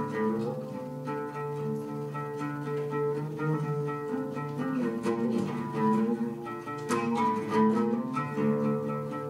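Solo oud played with a plectrum: long held, ringing notes in the lower and middle range, with a cluster of sharper plucked strokes about seven seconds in.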